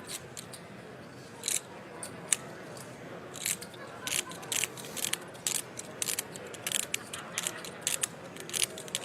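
Clay poker chips clicking at the table, in quick irregular clusters of sharp clicks as chips are riffled and handled, over a steady haze of room noise.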